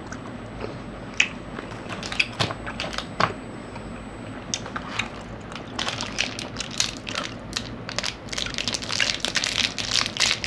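Sporadic crunches of a snack being chewed. From about halfway through, dense crackling of plastic snack wrappers being handled as a wrapped chewing gum is picked out.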